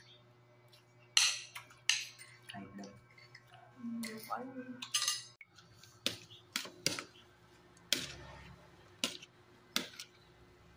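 Spoons and forks clinking and scraping on a metal bowl and a glass plate during a meal, then a metal spoon stirring and knocking in a plastic tub of shredded cabbage and carrot: a string of separate sharp clinks.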